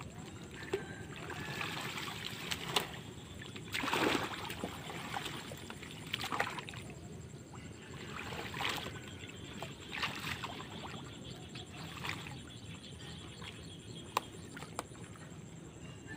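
Shallow floodwater splashing and sloshing as a person wades and shoves a floating pile of dry crop stalks, with rustling and sharp snaps from the dry stalks. The loudest splash comes about four seconds in, with smaller ones every second or two after it.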